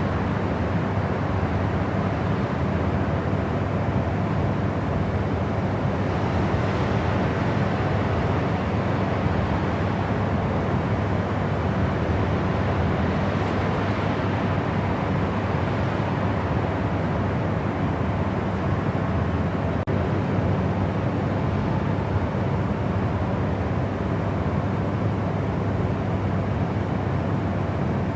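Steady white noise: an even, unbroken rushing hiss weighted toward the low end, with no change in level.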